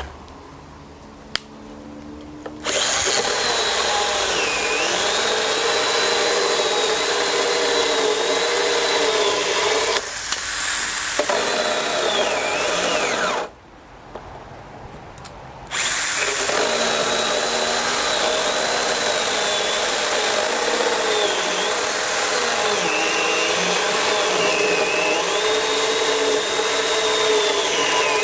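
Stihl GTA 26 12-volt battery pruning saw cutting through a timber board, its motor whine dipping in pitch and recovering again and again as the chain bites into the wood. The cutting starts a couple of seconds in and stops for about two seconds around the middle before running on.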